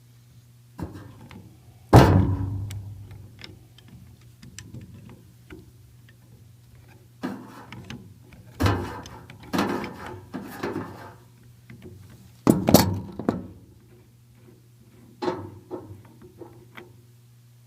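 Knocks and clunks from loosening and taking apart gas pipe fittings (shutoff valve, appliance connector and compression coupling) by hand and with tools. The knocks come irregularly, one loud one about two seconds in and another loud pair past the middle, over a steady low hum.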